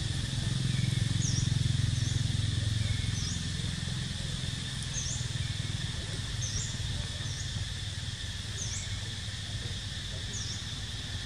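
Forest ambience: a steady high insect drone with a bird repeating short, high chirps about once a second, over a low rumble that is strongest in the first few seconds.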